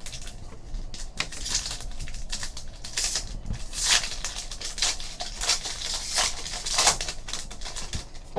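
Trading cards and their packs being handled: a quick, irregular run of dry rustles, slides and light clicks.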